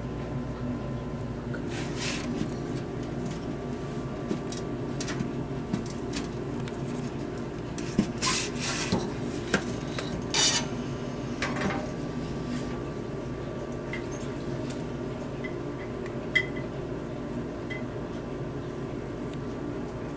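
A steady low hum with a faint high tone, broken by a few brief clinks and rubbing noises; the loudest come about eight seconds in and again about ten and a half seconds in.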